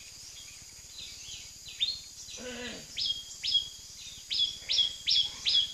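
A bird calling over and over from the riverside: short, high notes that each drop sharply in pitch and then hold, about two a second, growing louder in the second half.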